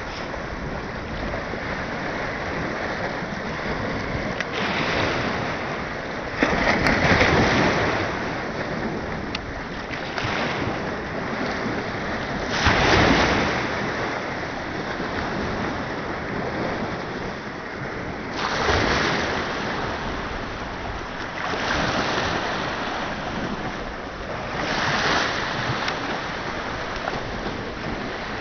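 Small waves washing and splashing against rocks: a steady rush of water with about five louder surges a few seconds apart as waves break, and wind on the microphone.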